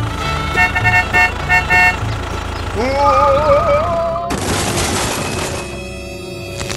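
A string of dubbed sound effects. First a horn toots in short, evenly repeated blasts for about two seconds. Then comes a wavering tone that rises in pitch, about a second of loud hiss, and a quieter steady hum near the end.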